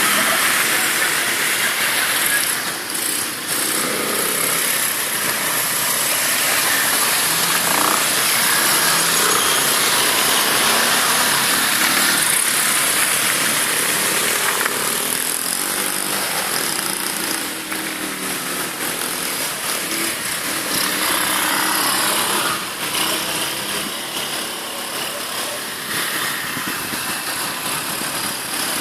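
ATV engine running under way, with a dense, steady rushing noise over it and its pitch shifting now and then.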